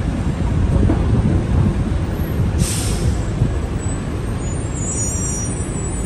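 City street traffic rumbling steadily, with a short hiss of air about two and a half seconds in.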